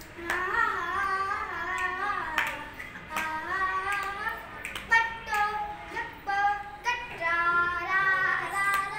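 A young boy singing a Hindi patriotic song solo, in sustained melodic phrases, with a few sharp clicks heard now and then.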